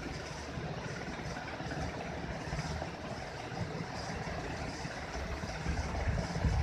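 Steady low rumbling background noise, with a slight swell near the end.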